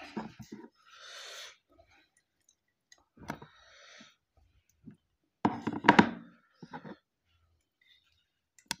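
Knocks and scrapes of a small serving pot handled over a plate while food is scooped out of it by hand. The loudest clatter comes about six seconds in.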